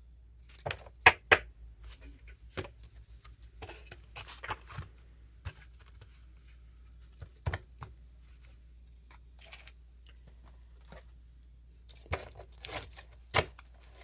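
Handling noise from objects being moved about close to the microphone: scattered rustles and crinkles with sharp taps and clicks, loudest about a second in and again near the end.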